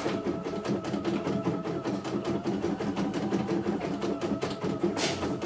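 CNY E900 embroidery machine stitching a design, its needle and hoop drive ticking rapidly and evenly at about ten stitches a second over the hum of its motor, with one sharper click near the end.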